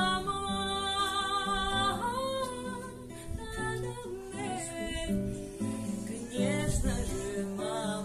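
A woman singing with instrumental accompaniment. She holds a long wavering note that ends about two seconds in, and the accompaniment plays on under shorter phrases.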